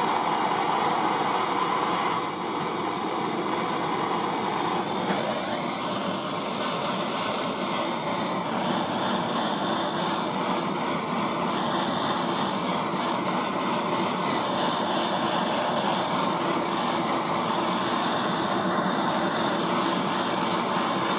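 Handheld gas blowtorch burning with a steady hissing roar, its flame warming the steel housing of a lathe live centre so that a new bearing can be fitted.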